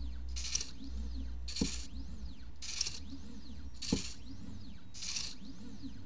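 midTbot ESP32 pen plotter drawing: its stepper motors whine in rising and falling glides as the pen carriage speeds up and slows down between strokes. About once a second there is a short hissy buzz, with a sharp tick now and then.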